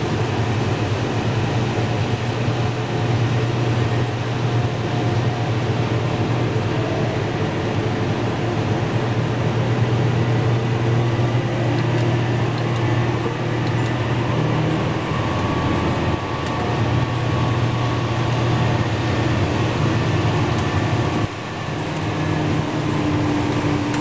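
Steady drone of farm machinery at work: a Case IH 2388 Axial-Flow combine harvesting corn and the tractor running alongside it. The sound dips briefly about three seconds before the end.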